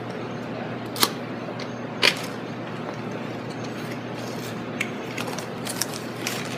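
Cardboard keyboard box being opened and handled: two sharp knocks about one and two seconds in, then a run of lighter ticks and rustles over a steady background hiss.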